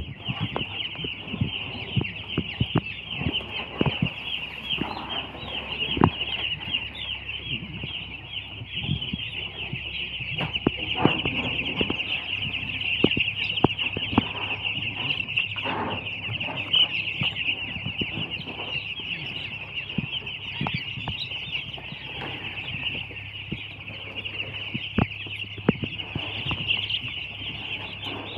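A flock of two-day-old broiler chicks peeping all together in a dense, continuous high-pitched chorus, with scattered small knocks and taps.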